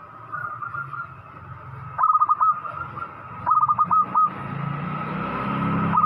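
Local perkutut (zebra dove) cooing: three phrases of quick, short coo notes, each ending in a longer note, at about two seconds in, at about three and a half seconds and again near the end. A steady noise builds up behind it from about four seconds in.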